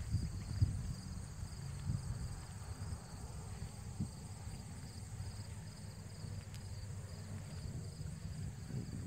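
Insects chirping in a steady chorus, one high pulsing trill over a constant higher hiss. Underneath runs a louder low rumble with soft irregular thumps.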